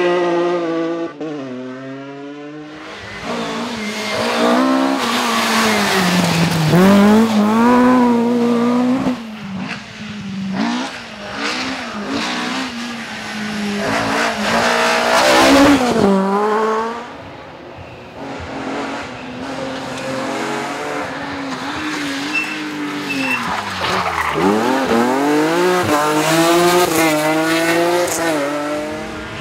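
Rally cars driven flat out on a special stage, engines revving hard and climbing and dropping in pitch with gear changes and braking, several passes one after another.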